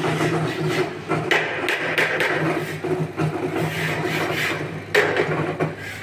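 Concrete mixer running with a steady low hum as its drum churns gravel and sand, overlaid by irregular rasping scrapes of steel shovels digging into aggregate.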